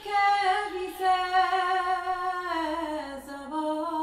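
Film score: a woman's voice singing long, slow, wordless notes that slide downward about two and a half seconds in.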